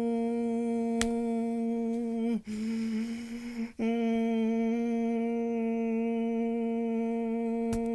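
Emergency Alert System attention tone: a steady, unbroken electronic hum with many harmonics, held throughout. About two and a half seconds in it breaks into a second or so of noisy static before resuming, and faint clicks come twice.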